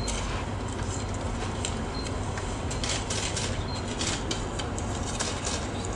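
Steady room hum with scattered short clicks and light rustling.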